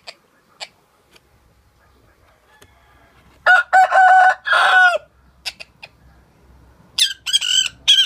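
Sun conure imitating a rooster's crow: a loud crow in several linked parts lasting about a second and a half, starting about three and a half seconds in. Near the end come a few short, shrill, high-pitched squawks.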